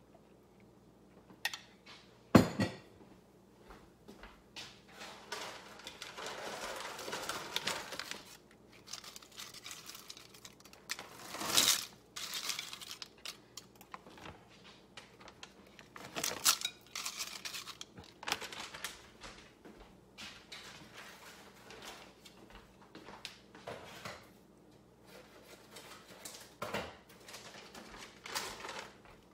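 A metal spoon clinks sharply against a ceramic casserole dish about two seconds in, then dry dehydrated potato slices rustle and crinkle on and off as they are handled and laid into the dish.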